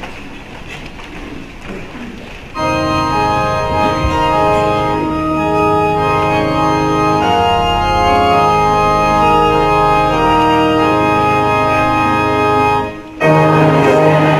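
Church organ playing a hymn introduction in sustained, held chords, after a couple of seconds of low shuffling as people stand. Near the end the organ breaks off briefly and the hymn proper begins, louder.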